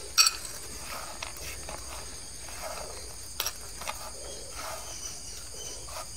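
Sliced almonds being scooped by hand off a chopping board and dropped into a small stainless-steel bowl: a sharp click at the start, then a few light clicks and rustles. A steady high-pitched cricket drone runs underneath.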